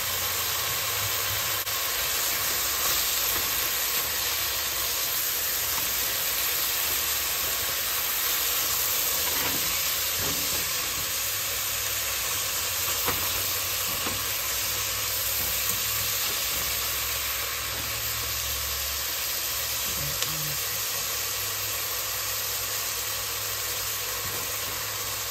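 Ground beef with diced onion and bell pepper sizzling steadily as it browns in a pot, stirred and broken up with a silicone spatula, with a few light scrapes.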